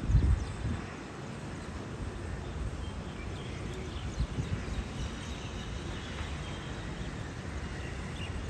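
Outdoor background noise: a low rumble with a brief louder bump right at the start, and faint scattered high chirps.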